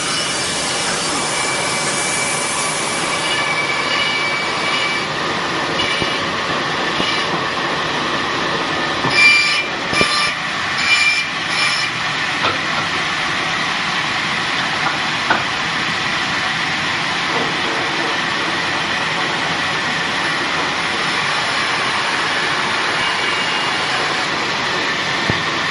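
Steady mechanical running noise with a faint high whine, and a short run of clanks about nine to twelve seconds in.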